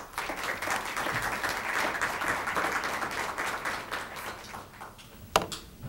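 Audience applauding as the lecturer is introduced, dense at first and dying away about four to five seconds in. Near the end there is a single sharp knock.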